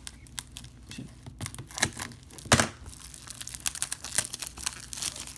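Plastic shrink wrap on a Blu-ray case being slit with scissors and peeled off by hand, crinkling and tearing in quick, irregular crackles, with one louder crackle about two and a half seconds in.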